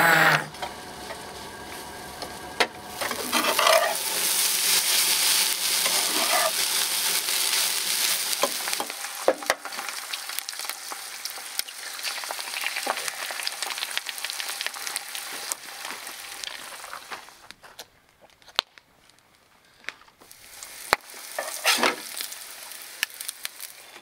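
Eggs frying in a pan, with a steady sizzle for much of the time and scattered small clicks and knocks. The sizzle starts about three and a half seconds in and dies away a few seconds before the end, leaving a few quiet knocks.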